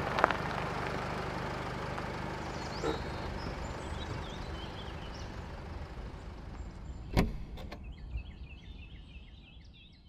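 Dodge Ram camper van's engine running with a low rumble that slowly fades out. A van door shuts with a single sharp thud about seven seconds in. Faint bird chirps come in near the end.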